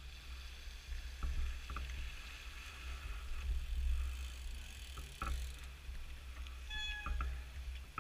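Mountain bike tyres splashing through the shallow water of a ford, with wind rumbling on the microphone and a few clicks from the bike. A brief squeal sounds near the end as the bike pulls up.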